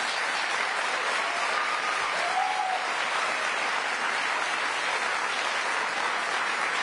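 Crowd applauding steadily, with a couple of brief calls from the audience about two seconds in.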